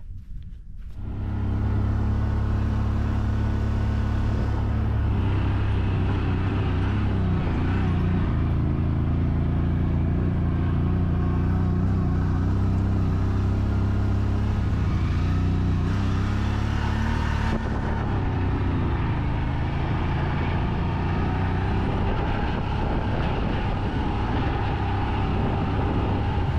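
Off-road vehicle's engine running steadily while driving across a salt pan. It comes in about a second in and holds an even pitch and level.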